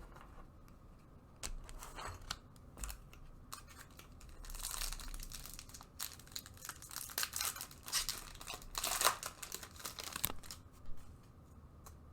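Wrapper of a Bowman trading-card pack being torn open and crinkled by hand: a run of short crackles and rips, busiest in the middle.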